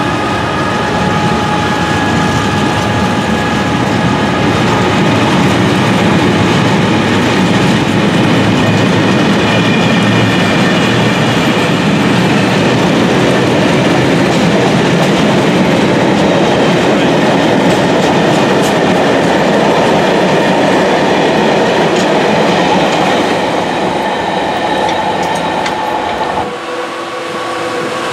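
A Class 66 diesel-hauled freight train of open box wagons rolling past at speed: a steady, loud rumble with wheels clattering over the rail joints and a few steady tones. Near the end it cuts off abruptly to the quieter sound of a second Class 66 freight approaching.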